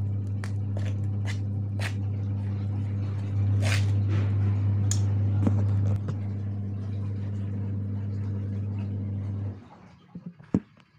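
A spoon stirring dough in an aluminium bowl, with scattered short clinks against the metal, over a loud, steady low hum. The hum grows louder for a couple of seconds in the middle and cuts off abruptly about a second before the end.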